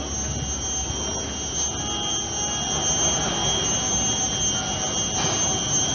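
Electric road-straddling Transit Elevated Bus (TEB) moving along its track: a steady rolling noise with a constant high-pitched whine.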